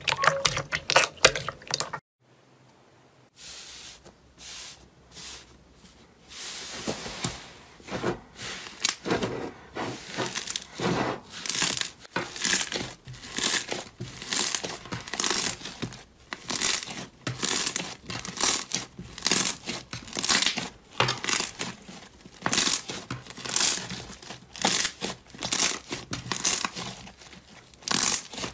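Slime squeezed and kneaded by hand: a wet squish of clear slime pressed in a glass bowl at the start, then, after a brief near-silent break, thick green slime worked between two hands with a run of crackling, popping squeezes, roughly one or two a second.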